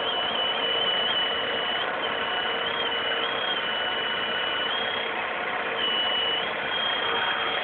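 VW Passat B3 single-point-injection petrol engine idling with a thin, high whistle that flips back and forth between two close pitches. The owner takes it for air being sucked past a worn mount gasket under the single-point injection unit, a vacuum leak.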